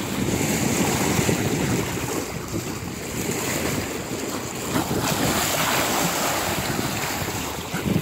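Wind buffeting the microphone in gusts over the steady rush of water along a sailboat's hull under sail.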